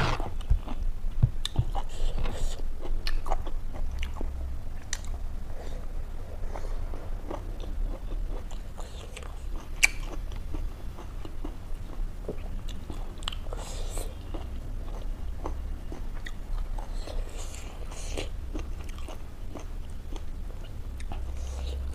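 Close-miked mouth noises of a person chewing and biting food, with many small sharp crunches and wet clicks.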